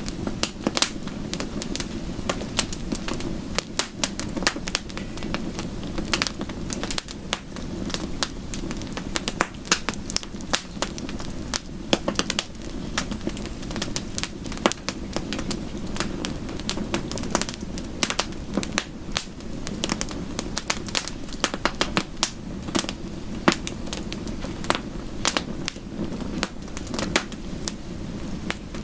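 Wood fire crackling, with frequent irregular sharp pops and snaps over a steady low rush.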